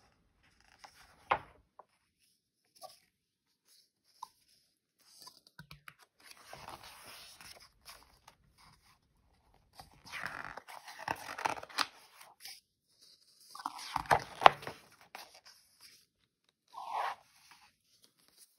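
Paper pages of a large picture book being turned and smoothed down by hand: several bursts of paper rustling and sliding, with a few sharp taps.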